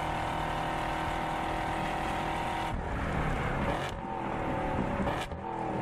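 Car engines running at speed on a racetrack, in short segments that change abruptly; near the end an engine note falls in pitch.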